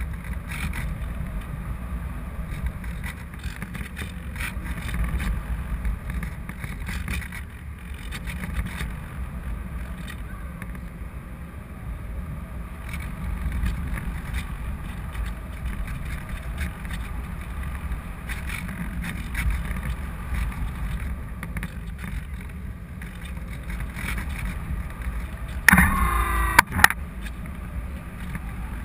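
Steady low rumble of air rushing over a GoPro camera riding on a Parkzone Radian Pro RC motor glider in flight. Near the end, a brief rising whine, about a second long, as the glider's electric motor spins up.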